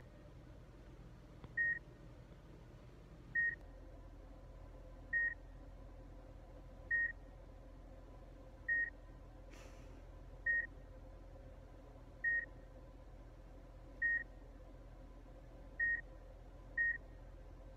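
Electronic beeping: short beeps on one high tone, repeating evenly about every second and three-quarters, with one coming early near the end, over a low steady hum.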